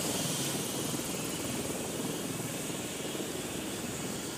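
Air-ambulance helicopter running on the helipad: a steady turbine and rotor noise.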